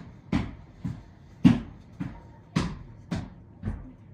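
A steady run of seven thumps, about two a second, the loudest about a second and a half in.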